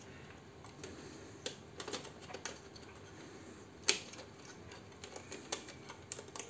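Irregular small clicks and taps of fingers handling the wiring and plastic cable connectors inside a stripped-down Tally T5040 passbook printer, with one sharper click about four seconds in.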